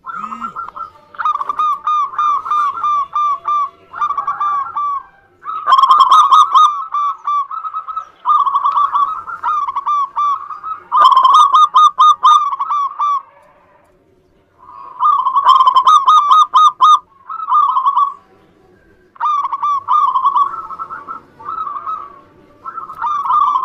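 Zebra doves (perkutut) cooing: about ten phrases of rapid staccato coos, each one to two seconds long, repeated with short gaps. A few phrases are much louder than the rest.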